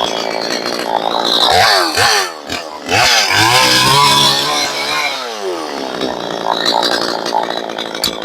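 62cc two-stroke chainsaw with a 20-inch bar cutting through a stringybark gum log. The revs rise and fall several times, hold high through the middle of the cut, then drop back to a lower steady run.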